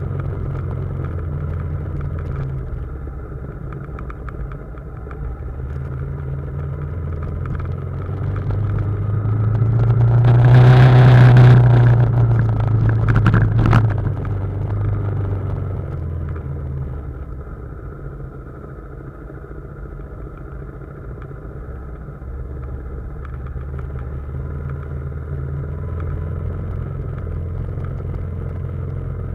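BMW G310GS single-cylinder motorcycle engine running steadily while descending a rough trail. It swells louder for a few seconds about ten seconds in, with a rush of noise, and a sharp knock comes just before it settles back.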